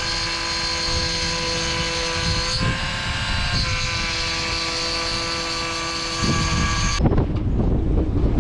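A small motor whining steadily with several held tones, dipping briefly in pitch twice; it cuts off abruptly near the end and gives way to a rough, gusty noise.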